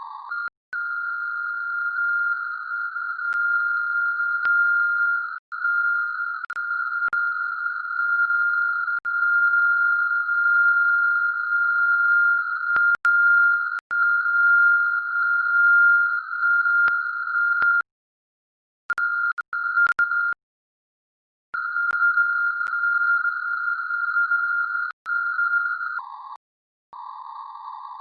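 A high-pitched steady electronic tone from the CwGet Morse code program's audio output, which the uploader takes for an audio loop or feedback. It wavers in loudness, cuts out briefly a few times, and near the end drops to a lower, rougher tone.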